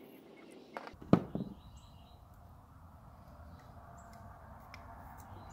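A few short clicks from a screwdriver and a Zebco 304 spinning reel being handled as its side screws come out, the loudest a single sharp click about a second in, over a faint steady background hum.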